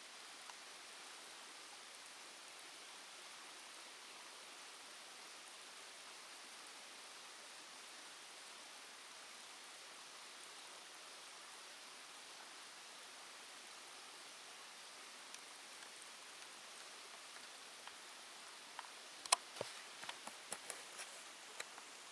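Faint, steady outdoor hiss, like distant running water or wind. Near the end comes a brief cluster of crackles and clicks, like steps or rustling on dry ground.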